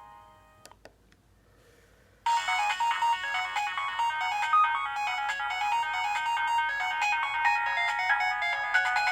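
Nokia 2310 mobile phone ringtone: a busy electronic melody of quick, bright notes that starts abruptly about two seconds in, after a couple of faint clicks, and plays on.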